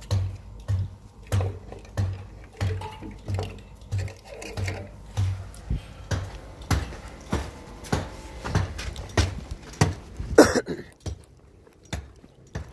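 Footsteps at a steady walking pace, about one and a half steps a second, with a bunch of car keys jangling in hand. One louder knock about ten and a half seconds in, after which the steps go quieter.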